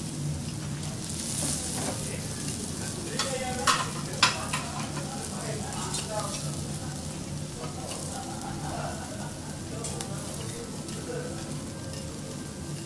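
Beef sizzling on a steel teppanyaki griddle, with a metal knife and fork scraping and clinking against the plate; two sharp clinks about four seconds in are the loudest sounds.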